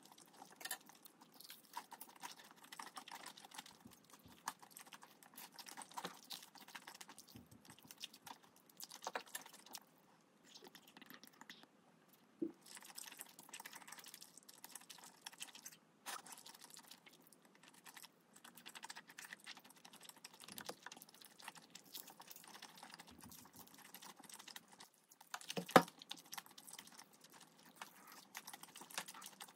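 Close-miked eating: chewing and slurping chewy Chinese glass noodles from mala xiangguo, with many small wet mouth clicks. A sharp knock near the end is the loudest sound.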